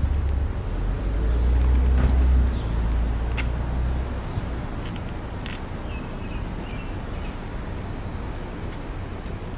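Outdoor street ambience: a steady low rumble of traffic, loudest in the first four seconds, with a few faint bird chirps after about five seconds.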